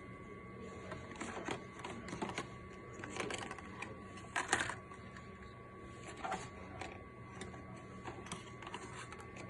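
Handling noise from fitting a RAM module into a Dell OptiPlex 7060: scattered irregular clicks, the loudest about four and a half seconds in.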